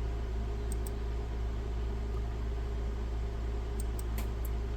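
Steady low hum of background electrical or fan noise, with a few faint clicks about a second in and again near the end.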